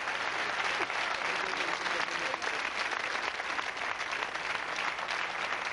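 Studio audience applauding: a dense, steady clatter of many hands clapping, with a few voices mixed in.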